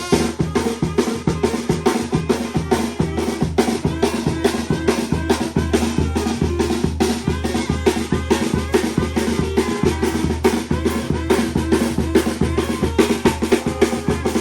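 Costeño dance music from Guerrero's Costa Chica: a drum-heavy passage with a fast, steady beat of bass drum and snare over a bass line.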